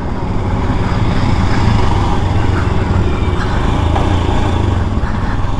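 Royal Enfield Himalayan BS6's single-cylinder engine running steadily with a quick, even pulsing as the bike is ridden a short way.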